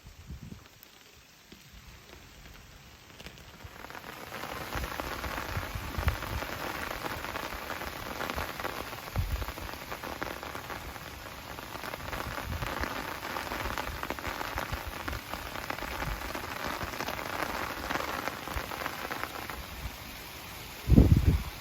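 Steady rain falling, swelling into a dense hiss about four seconds in. Scattered low thuds run through it, and there is a loud, short low bump near the end.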